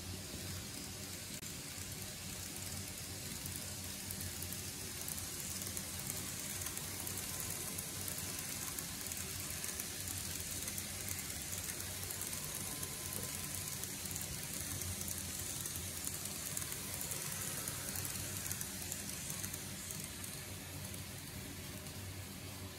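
TOMIX N-gauge E231-series model train running on its track: a steady whir of the small motor with a fine rattle of the wheels on the rails, a little louder in the middle as it passes close by.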